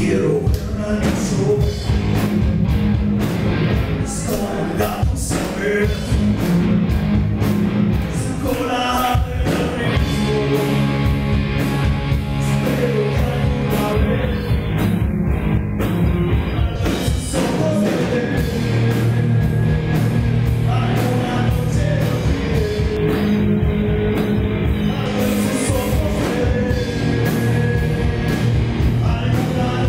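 Live rock band playing electric guitars, bass and drums, with a man singing into a microphone.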